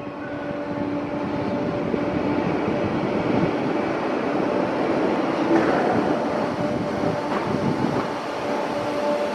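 Merseyrail Class 508 electric multiple unit pulling along the platform toward the listener, its running noise growing slowly louder, with a steady two-note hum from the traction equipment.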